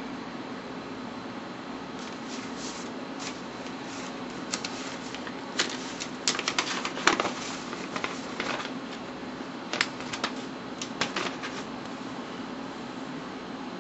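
Paper handling, an envelope and a letter opened and shuffled: irregular crinkling, rustling and crackling, busiest and loudest about six to seven seconds in, over a steady low hum.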